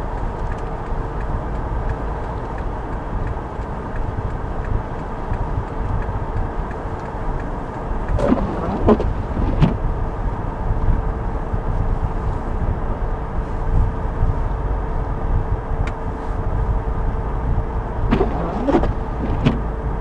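Car interior while driving on a snow-covered road: steady low rumble of tyres and engine, with a steady hum running under it.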